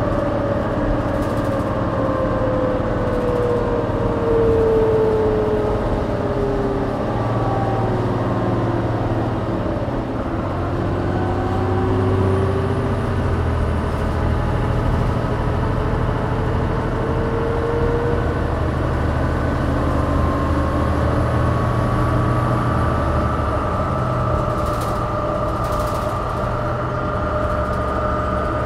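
New Flyer DE60LF hybrid articulated bus with a Caterpillar C-9 diesel and GM-Allison EP50 hybrid drive, running over a steady low drone. Its drive whine falls in pitch over the first ten seconds or so as the bus slows, then climbs again as it speeds back up.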